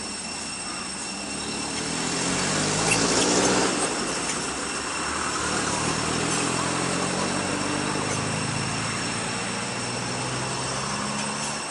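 An engine running, its pitch drifting as it grows louder to a peak about three seconds in, then holding more steadily. Steady high-pitched tones sound beneath it.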